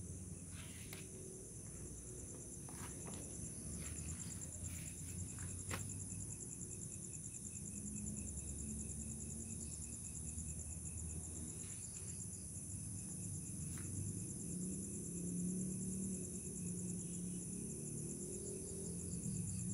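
Crickets chirring steadily in a high, fast-pulsing drone, with a few short clicks or knocks scattered through it and a low rumble underneath.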